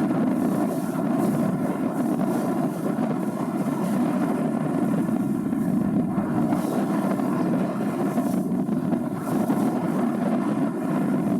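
Excursion boat's engine running steadily while the boat is underway.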